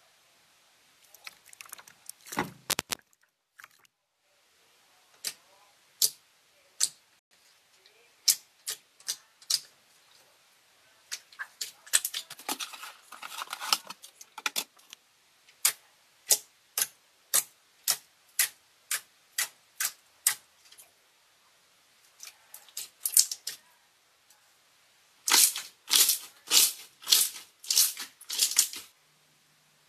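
Slime squeezed and pressed by hand, giving sharp wet clicks and pops as air pockets burst, at times in a steady run, with a dense burst of loud pops near the end. A heavier squelch stands out a couple of seconds in.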